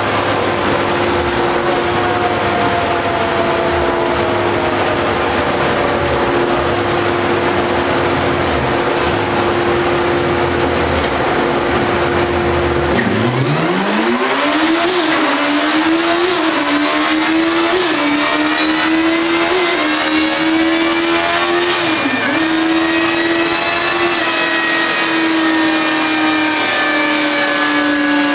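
Motorcycle engine, the rebuilt 2005 Suzuki Hayabusa's inline-four, running at steady high revs, then dropping off sharply about halfway through and climbing back up with the throttle worked up and down.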